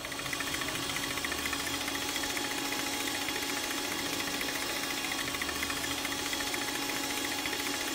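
Arno stand mixer's motor switching on and then running at a steady speed, its balloon whisk whipping egg whites for a gluten-free sponge cake batter.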